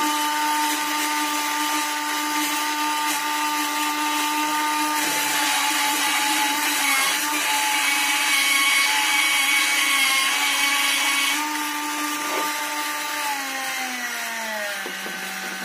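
Small yellow plastic gearbox DC motor turning a toy six-wheel truck's rear axles through its driveshaft at full speed, with a steady whine. From about five seconds in, a harsher grinding hiss joins for several seconds while the wheels are gripped by hand and the motor keeps driving against the load. Near the end the whine falls in pitch as the motor slows.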